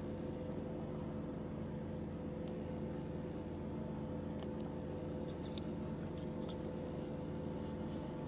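A steady low hum holding several fixed pitches, with a few faint, short high ticks or squeaks scattered through the middle.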